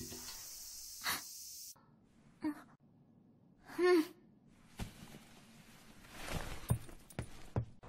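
A young woman's short, wordless voiced noises: a couple of brief breathy sounds, then a short pitched hum-like syllable about four seconds in. A few short clicks and a soft rustle follow near the end.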